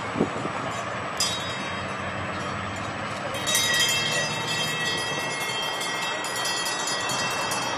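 Street traffic noise with a steady high-pitched squeal of several tones. The squeal comes in about a second in and gets louder from about three and a half seconds.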